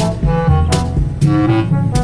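Background music: an upbeat jazzy tune with horn-like melody notes over a steady beat of about two strokes a second.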